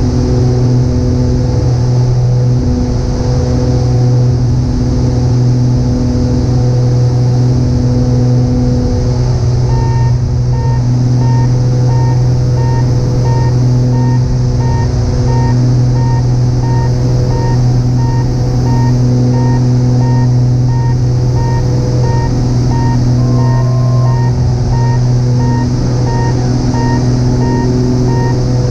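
Single-engine piston airplane's engine and propeller drone heard in the cockpit, steady and unchanging. About ten seconds in, a row of short, evenly spaced beeps starts and keeps repeating over the drone.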